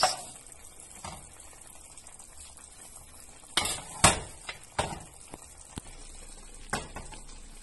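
Cooked spinach being tipped into a pot of stew over a faint steady sizzle, with a spoon knocking against the pot about six times, loudest about four seconds in.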